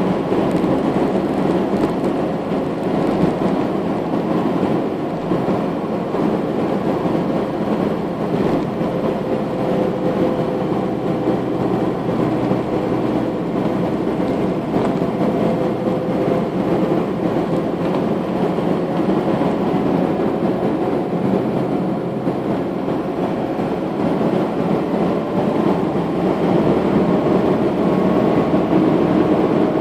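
Steady rumble of a car driving along a road, engine and tyre noise heard from inside the car, with a faint steady hum that drifts slightly in pitch.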